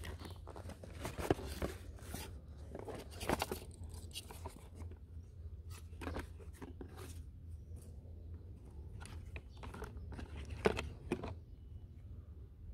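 Unboxing: a polystyrene foam packing insert and cardboard box flaps being handled, then the plastic wrapping around a hand blender rustling. A run of irregular crunches and rustles, the sharpest about a second in, at about three seconds and near the end, over a low steady hum.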